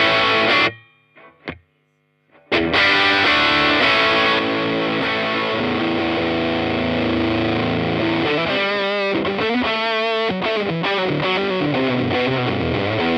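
Electric guitar played through a Rat-style Berry Pedals PHAT distortion pedal into a Laney CUB-Super 12, a 15 W all-tube combo with a 12-inch speaker, heavily distorted. A short loud strum at the start is followed by about two seconds of silence, then sustained distorted playing with bent, wavering notes near the middle.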